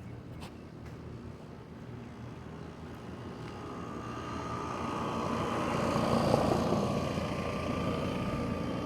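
HVAC unit running, a steady mechanical hum with a whine that comes in a few seconds in, growing louder toward the middle and then holding.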